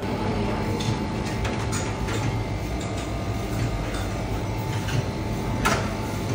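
Steady machine hum with scattered light clicks and clatter, and one sharper click about five and a half seconds in.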